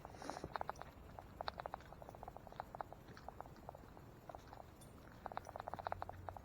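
Footsteps on a woodland trail, each step a cluster of small crackling clicks, as of dry leaves and twigs underfoot, coming in uneven groups.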